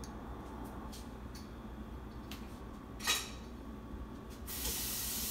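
Quiet kitchen with low hum and a few light clinks of kitchenware, the loudest a single clink with a short ring about three seconds in. Near the end a steady high hiss starts abruptly.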